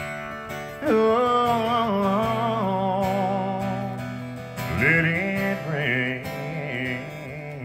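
Live solo acoustic guitar with a man's voice singing a country ballad. About a second in the voice holds a long note, and near the middle it moves into a wavering, higher vocal line without clear words, over the guitar chords.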